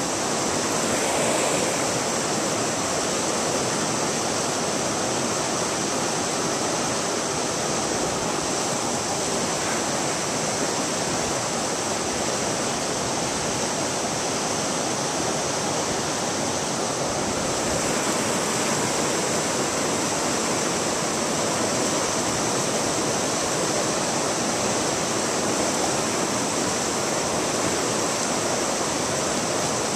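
Shallow brook water running over rocks, a steady, close rush that doesn't let up.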